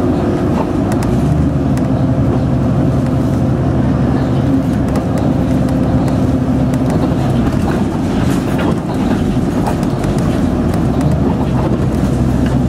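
City bus engine and road noise heard from inside the cabin while driving, a steady low drone with a few faint rattles.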